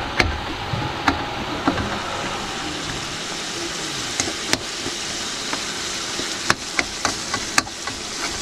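A long metal spoon stirring tomatoes in an aluminium wok, clinking and scraping against the pan at irregular moments, over a steady sizzle as the tomatoes fry down to a soft sauce.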